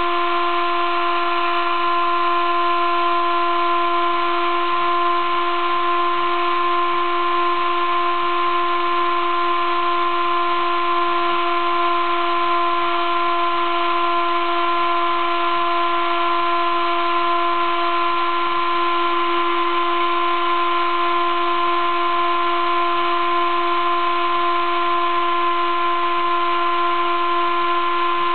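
Sable-2015 desktop CNC mill engraving 15 mm acrylic plate with a 20-degree V engraving cutter: a steady, unchanging whine of several tones over a constant hiss, the machine cutting at a fixed speed and feed.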